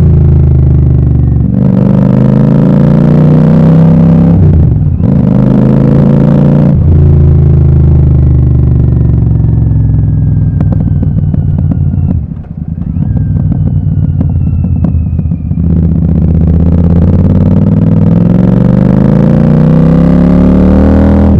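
A Royal Enfield Super Meteor 650's 648 cc parallel-twin running through a Gursewak aftermarket exhaust with the dB killers removed, pulling up in pitch and dropping back several times. In the middle the engine note gives way to a stretch of rapid crackling and popping as the revs fall. Near the end there is a long steady climb in pitch.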